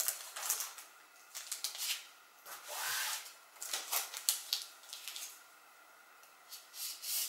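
Plastic transfer tape and vinyl lettering being handled and pressed down by hand on a tablecloth: short crinkly rustles and light taps coming in irregular bursts.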